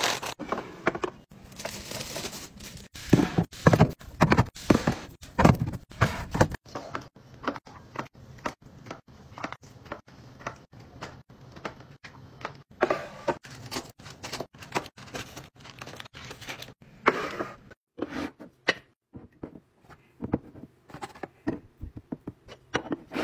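Handling sounds of kitchen restocking: plastic-wrapped snack bags crinkling as they are pushed into a clear plastic organizer bin, then a run of light taps, clicks and knocks as food cups and other items are set into bins and dishes.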